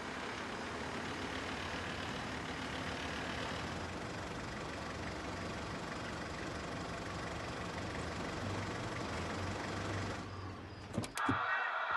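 Mercedes-Benz sedan taxi pulling up to the curb and idling, a steady engine hum. About ten seconds in the sound drops away abruptly, followed by a couple of sharp clicks near the end.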